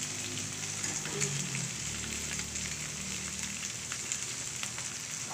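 Okra, garlic and curry leaves sizzling in hot oil in a pan: a steady fine crackle of shallow frying.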